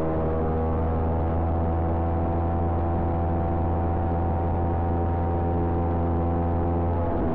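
Kawasaki Ninja 250 parallel-twin engine held at steady revs while riding, its tone dropping lower near the end as the revs change.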